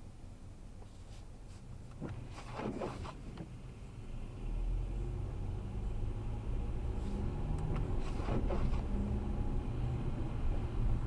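Low steady rumble with a faint engine-like hum, growing louder about four seconds in, with a few brief rustles over it.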